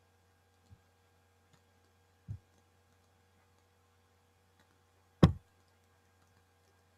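Handling noise at a desk: a few soft knocks and bumps from a hand on the desk or computer, the loudest and sharpest about five seconds in, over a faint steady hum.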